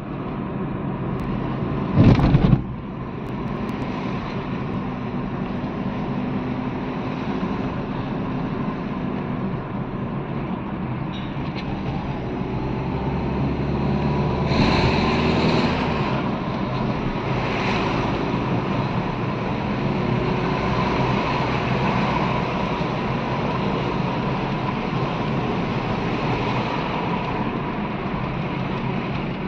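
Car engine and road noise heard from inside the cabin while driving, steady throughout. A single loud thump comes about two seconds in, and a brief louder rush about halfway through.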